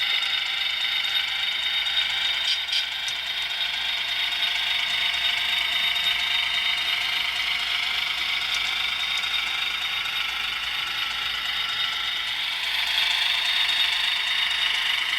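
HO scale model train running along the track, its small electric motor and gear drive whirring steadily, growing a little louder near the end.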